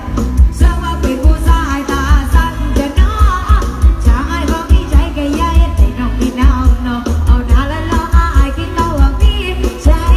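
A song with a singing voice and a heavy bass beat of about two beats a second, played loud through a rod hae procession truck's sound system.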